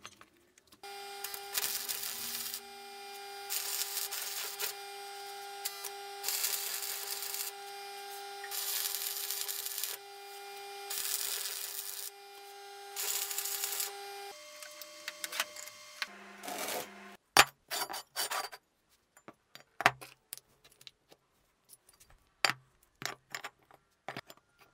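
Electric arc welder tack-welding a steel angle-iron box: six short crackling bursts of about a second each over a steady hum. After the hum stops, scattered metal clinks and knocks as steel parts and transformer cores are handled and set down.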